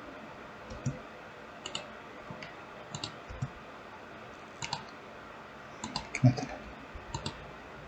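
Scattered clicks of a computer mouse and keyboard, with a slightly louder knock about six seconds in.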